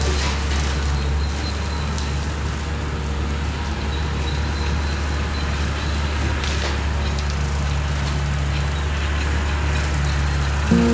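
Engine of a mowing machine running steadily as its rotary cutter works: a constant low drone with a rushing noise over it.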